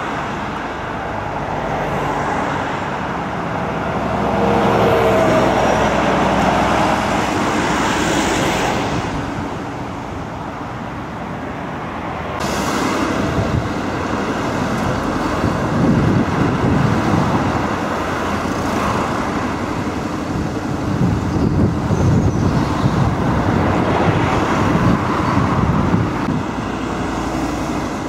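Road traffic passing close by, cars and a heavy truck among them: a continuous rush of engines and tyres that swells and eases, with a sudden shift in the sound about twelve seconds in.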